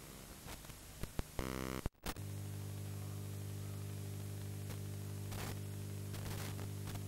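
Analog TV static hiss with a couple of clicks, then a brief buzz and a sudden split-second dropout to silence. After that comes a steady low electrical hum with overtones, a test-pattern hum that cuts off at the end.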